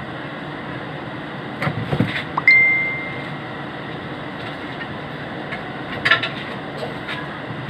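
Metal clinking and knocking: a few sharp clicks, then a hard metal strike about two and a half seconds in that rings on one high note for under a second, and more clicks near the end, over a steady background noise.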